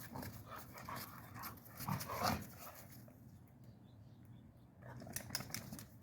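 A dog panting in quick, repeated breaths, louder in the first half and fainter after, with a few sharp clicks near the end.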